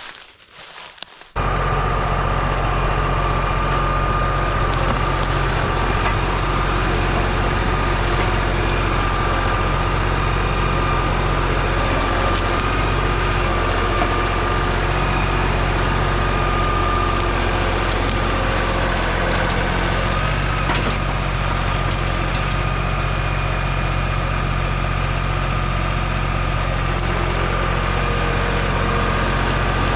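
Diesel tractor engine running steadily, starting abruptly a little over a second in, with a steady high whine over its low engine note.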